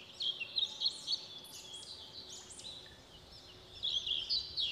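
Small birds chirping and twittering: a quick run of short, high-pitched calls, loudest in the first second and again near the end.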